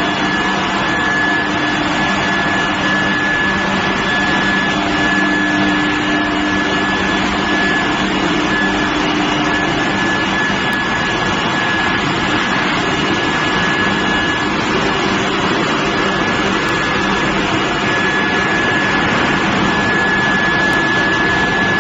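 Billet induction heating furnace running: a steady, loud machine noise with a constant high-pitched whine.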